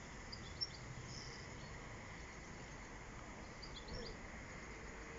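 Faint, distant bird chirps: a few brief high calls about half a second in and again near four seconds in, over a low steady outdoor hiss.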